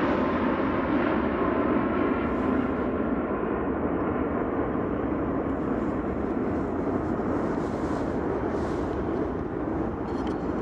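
Jet airliner engines: a steady rushing noise with a faint whine in the first few seconds, slowly fading as the aircraft moves away.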